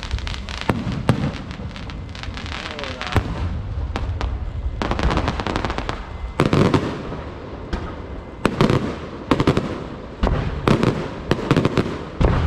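Aerial fireworks going off: irregular sharp bangs from shell bursts, with crackling between them, coming thick and fast in the last four seconds or so.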